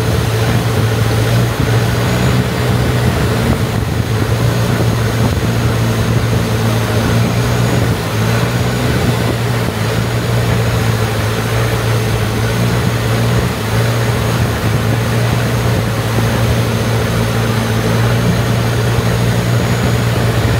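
A motorboat's engine running steadily at constant speed, a low, even hum with no change in pitch.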